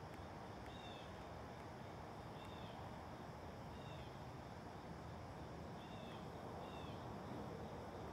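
Faint chirping of a bird in the background: five short, arching chirps spaced about a second or two apart, over a steady low hum.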